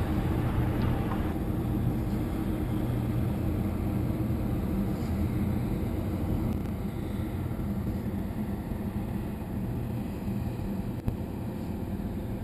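Steady low drone of the Mesabi Miner's diesel engines heard across the water as the thousand-foot laker sails away, easing slightly in loudness about halfway through.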